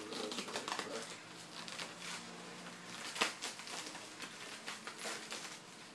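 Plastic packaging and other items being handled and unpacked: irregular rustling and crinkling with scattered sharp clicks and taps, the sharpest about three seconds in.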